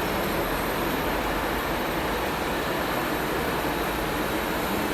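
C9372 brake drum and disc lathe running with a steady, even mechanical noise.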